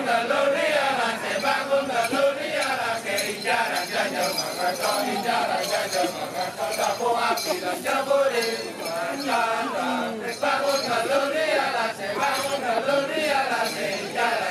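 Balinese Kecak male chorus chanting in unison, with a jingling of bells over it.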